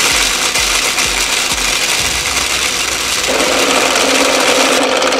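Toy blender switched on and running: a steady motor whir with jelly beans rattling in the plastic jar. The sound shifts and grows a little fuller about three seconds in.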